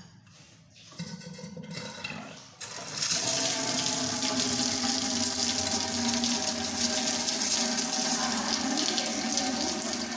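Kitchen sink-mixer tap turned on about a quarter of the way in, its stream splashing steadily into a stainless steel sink. This is the test run of the tap with its spindle freshly repaired.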